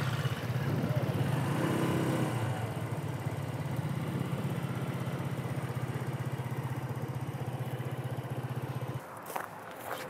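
Small motor scooter engine running steadily as it rides along a dirt track, a low hum with a fast, even pulse that cuts off about nine seconds in. It is followed by a few light footsteps on dry ground.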